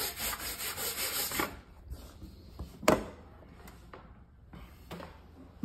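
A rough rubbing or scraping noise that stops abruptly about a second and a half in. About three seconds in comes a single sharp click, the loudest sound, and a fainter knock follows near the end.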